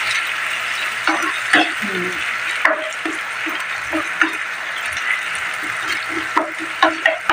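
Sardines in tomato sauce with chopped pechay stems sizzling in a nonstick pan while a spoon stirs them, with a series of short scrapes and taps of the spoon against the pan.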